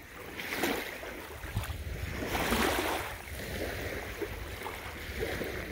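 Shallow lake water lapping and sloshing in uneven swells every second or so, with wind rumbling on the microphone.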